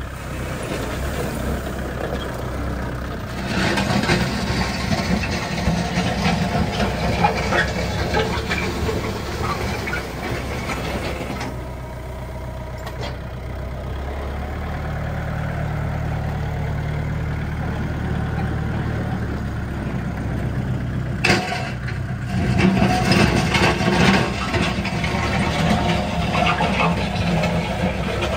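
Vehicle engine running with a steady low drone. It gets louder and noisier about three seconds in and again after about twenty seconds, with a steadier hum in between.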